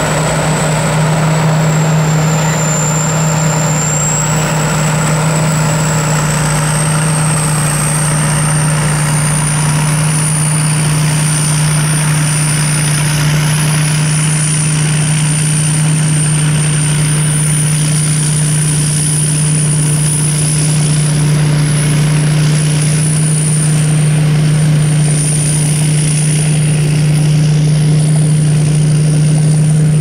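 Steady motor noise: a constant low hum under a thin high whine that drifts slightly in pitch.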